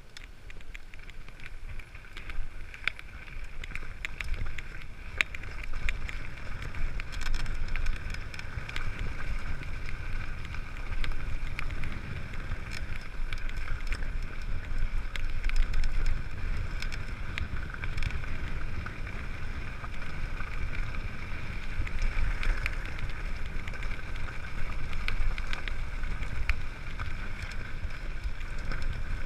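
Wind rumbling on a helmet-mounted GoPro's microphone during a mountain-bike descent, with tyre noise on a gravel track and scattered clicks and rattles from the bike. It grows louder over the first couple of seconds and then holds steady.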